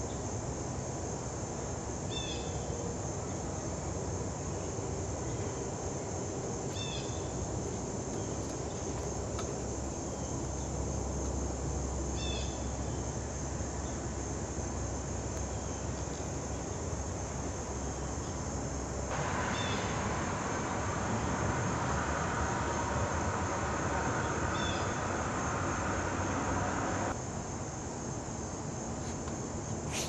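Outdoor ambience with a steady high-pitched insect chorus, crickets or similar, and a short high chirp about every five seconds. A rushing noise comes in about two-thirds of the way through and cuts off suddenly near the end.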